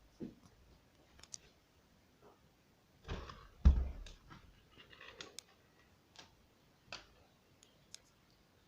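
Scattered small clicks and knocks of handling in a small room, with one heavy thump about three and a half seconds in.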